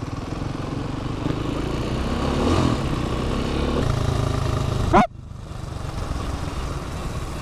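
Dirt bike engine running under way. About five seconds in it revs sharply upward, then cuts off abruptly and carries on quieter.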